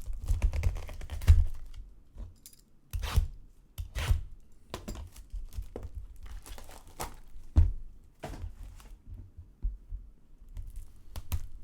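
Packaging of a sealed Bowman Chrome Hobby box of baseball cards being torn open and crinkled by hand, in irregular rustles and clicks, with a few dull knocks from handling the box.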